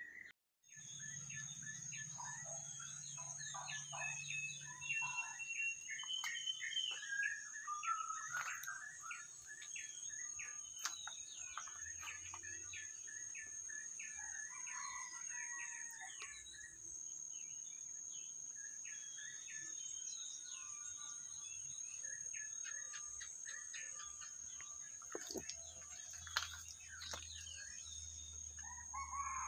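Garden ambience: several small birds chirping and calling in short, quick phrases over a steady high-pitched insect drone.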